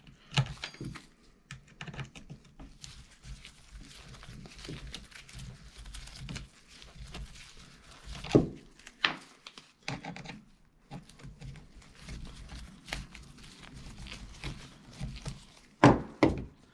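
Clicks and knocks of a hand tool and the plastic chainsaw body being handled while the front handle of a Husqvarna 350 chainsaw is being unbolted. There are sharper knocks about halfway through and two near the end.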